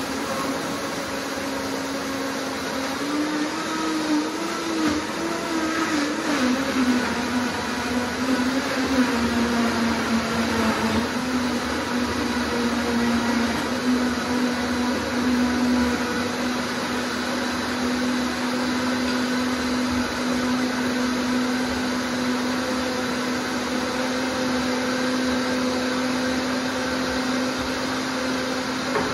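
Countertop blender running on a thick fruit smoothie with no water added. The motor's pitch rises and wobbles for the first few seconds, then drops and settles to a steady whir.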